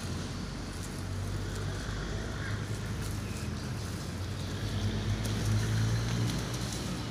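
A low, steady engine hum, growing louder about five seconds in.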